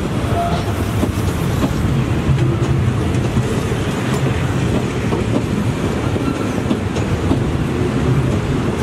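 Passenger train coaches rolling past close by: a steady rumble of wheels on rails with the clickety-clack of wheels over rail joints.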